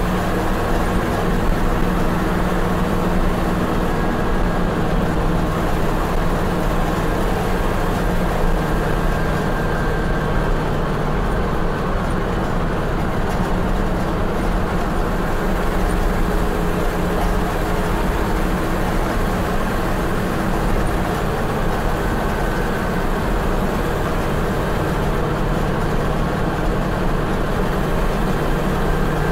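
1966 International Loadstar 1600 truck's 345 V8 gas engine running steadily under way, heard from inside the cab with road noise.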